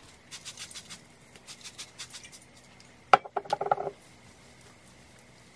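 Trigger spray bottle spritzing water onto hair in a quick run of short hissy squirts over the first two seconds. About three seconds in comes a brief louder sound with some pitch to it.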